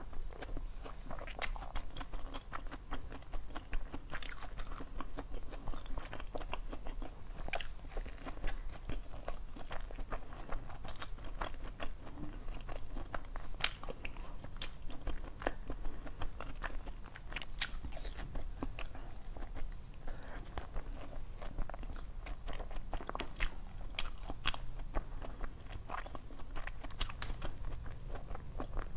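A person biting and chewing a dark, egg-shaped food close to the microphone, with many short sharp crunches at irregular intervals.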